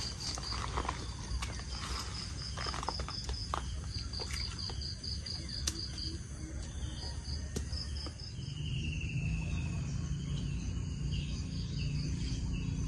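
An insect chirping in a fast, even pulse of about six high notes a second, with a few sharp clicks in the first half. About eight seconds in, a low steady hum comes in and the insect fades.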